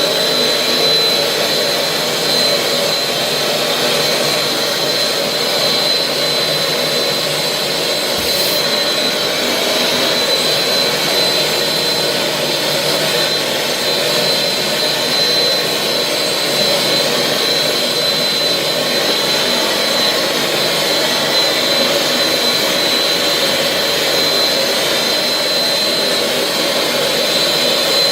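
Britex carpet cleaning machine running, its vacuum motor and pump making a steady, loud rushing noise with a constant high whine.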